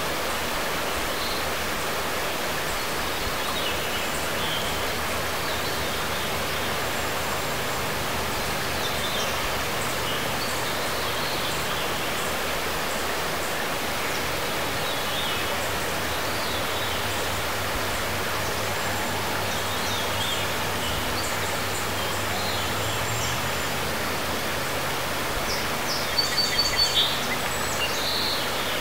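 Shallow river flowing steadily over a stony bed, an even rushing of water, with faint bird chirps scattered through it. Near the end there is a quick run of about five louder, high chirps.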